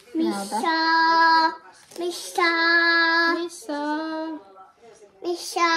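A voice singing four short phrases, each holding one long, steady note. The first phrase slides up into its note.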